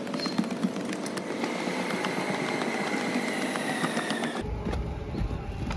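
Road traffic going past below a pedestrian overpass, with scattered footstep clicks on its steps. A low rumble sets in abruptly about three-quarters of the way through.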